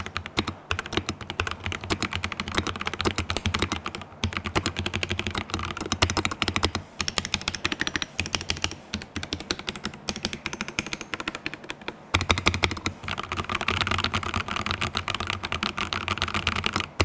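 Ducky One 3 SF mechanical keyboard being typed on quickly and continuously: a dense clatter of keystrokes with a few short pauses, about 4, 7 and 12 seconds in.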